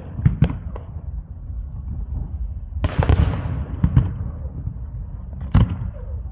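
Fireworks bursting overhead: scattered sharp bangs, with a big burst about three seconds in whose crackle fades over a second or so, then more single bangs.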